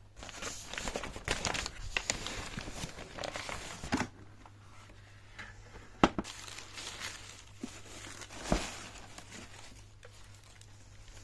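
Sneaker box packaging crinkling and rustling as it is handled, densest for the first few seconds, then two sharp knocks, the first the loudest sound.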